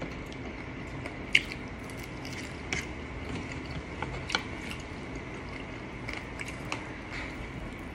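Eating at a close microphone: a handful of sharp clicks and wet smacks from a fork and from mouths as spaghetti and fried chicken wings are eaten, the loudest click about a second and a half in.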